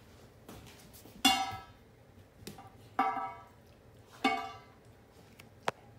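A metal dog food bowl ringing out three times as it is knocked while the dog eats, each clang dying away over about half a second, followed by a short sharp click near the end.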